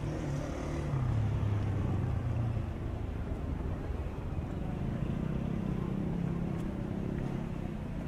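A motor vehicle's engine running, a low hum whose pitch shifts higher about halfway through.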